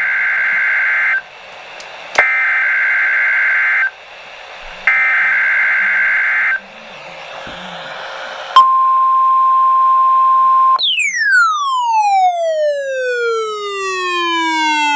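Emergency Alert System SAME header: three harsh, buzzing bursts of data tones, each about two seconds long. The NOAA Weather Radio 1050 Hz warning alarm tone follows, a steady beep for about two seconds. It ends in a tone with many overtones that falls steadily in pitch for about four seconds.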